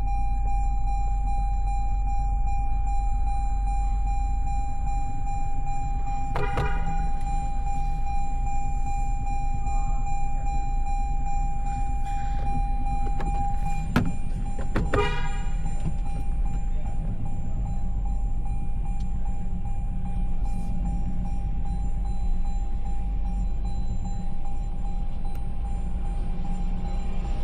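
2022 Toyota Tundra's twin-turbo V6 engine idling steadily, with a few short clicks along the way; this is the truck said to have an engine knock.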